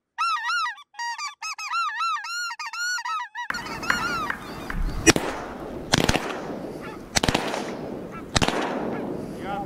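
Wild geese honking in flight, many overlapping calls for the first three and a half seconds. After that comes a rushing background with a few more honks and four sharp bangs spread across the second half.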